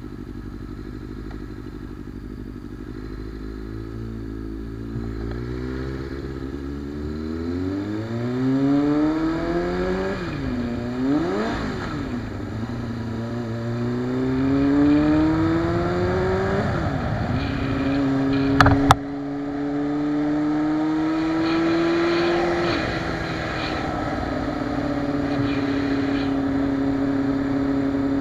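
Motorcycle engine heard from the bike itself as it accelerates, revs climbing and dipping at a few gear changes, then holding a steady note at cruising speed. A single sharp click about two-thirds of the way through.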